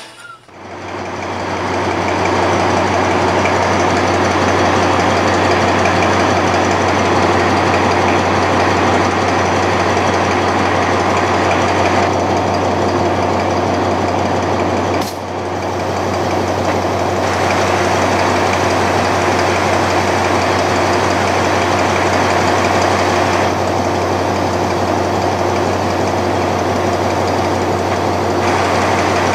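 A diesel locomotive engine, the Alsthom AD24C No. 4145 of the State Railway of Thailand, running steadily with a deep hum and a rough mechanical noise above it. A sharp click and a brief drop in level come about halfway through.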